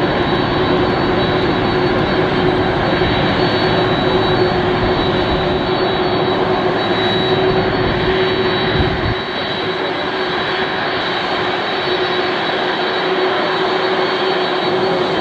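Boeing 747-400 freighter's four jet engines running at taxi power: a steady whine over a dense rushing noise with a hum beneath. The deep rumble falls away about nine seconds in as the aircraft moves off.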